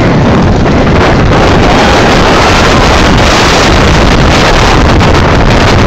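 Heavy wind buffeting the microphone mixed with the rumble of a wooden roller coaster train running on its track at speed. Faint rider screams come through the noise a couple of times.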